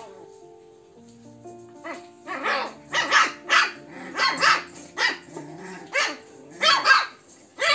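Shih Tzu puppies barking: a run of about a dozen short yaps, roughly two a second, starting about two seconds in, over background music.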